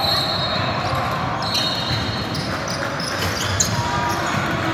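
Basketball game on a hardwood gym court: the ball bouncing and sneakers squeaking, two short high squeaks near the start and about halfway, over steady background noise from the hall.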